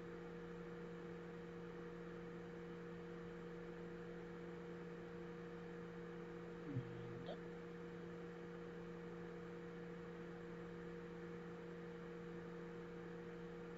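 Steady low electrical hum with a faint hiss, made of a few constant tones. There is one brief faint sound about seven seconds in.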